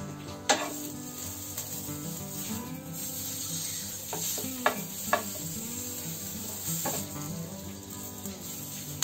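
Green chillies sizzling in a little hot oil in a nonstick frying pan. A wooden spatula knocks against the pan a few times as they are pressed and turned. Faint background music plays underneath.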